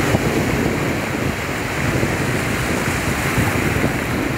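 Ocean surf breaking and washing up the shallow beach in a steady roar of foaming water.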